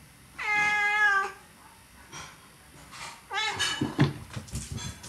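House cats giving two long meows about three seconds apart, calling for their owner, with a short thump near the end of the second meow.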